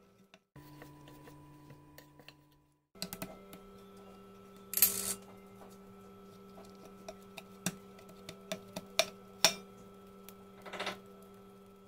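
Donut dough being kneaded by hand in a stainless steel bowl: scattered knocks and taps of hand and dough against the metal, with a couple of short scrapes, over a steady background hum.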